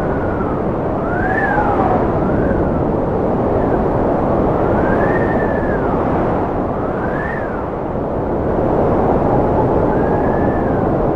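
Cold wind blowing with a steady rush and a thin whistle that rises and falls in pitch, swelling and fading several times.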